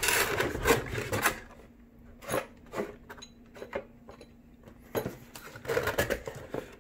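Rummaging through a box of parts: packaging rustling and rubbing in two spells, with a few sharp clicks and knocks in between.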